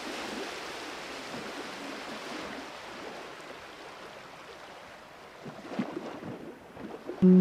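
Steady rushing of wind and road noise picked up by a camera mounted on the outside of a car driving along a sandy track, slowly easing off, with a few light knocks and bumps in the last couple of seconds.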